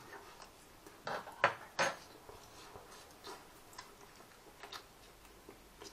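Metal cutlery clinking against a ceramic plate: three sharp clicks between one and two seconds in, then a few faint ticks.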